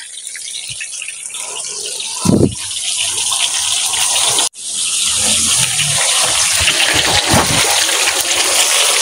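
Hot oil sizzling steadily as banana fritters deep-fry in a wok. There is a brief knock about two seconds in, and the sound drops out for an instant halfway through before the sizzle goes on.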